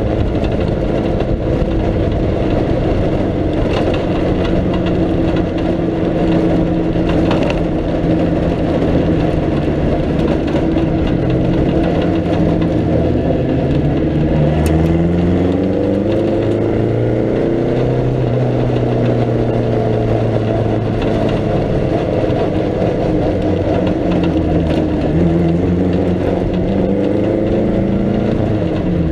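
1937 Riley 12/4 Sprite Special's four-cylinder engine at racing speed, heard from the open cockpit, its revs climbing and dropping several times as the car accelerates and shifts. Its preselector gearbox has lost second gear, so the changes go straight between first and third.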